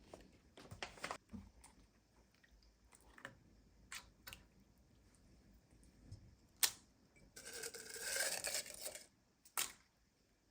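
Kitchen food-prep handling: scattered light clicks and taps, with a rustle lasting about a second and a half around eight seconds in.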